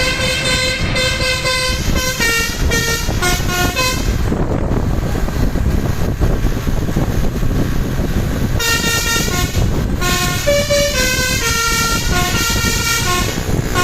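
Bus telolet 'basuri' musical horn playing a quick melody of changing notes, which stops about four seconds in, leaving a steady rumble of engine and road noise, then starts a tune again about nine seconds in and plays until near the end.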